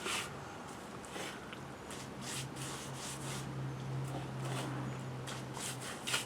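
Brush scrubbing a thin, milky cement slurry primer onto rough concrete, in a series of irregular rasping strokes. A low steady hum runs under it through the middle for a few seconds.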